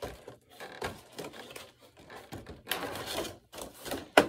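Rigid clear plastic packaging and a cardboard box being handled, crinkling and clattering irregularly, with a sharp click near the end.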